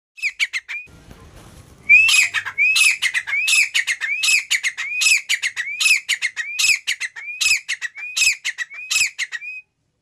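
A grey francolin calling: after a brief opening burst, its loud, harsh phrase repeats about every three-quarters of a second, some ten times in a row, then stops abruptly.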